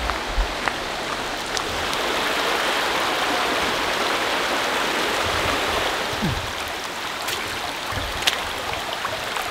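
Shallow, rocky mountain river rushing over stones: a steady rush of water that swells in the middle, with a few faint low thumps.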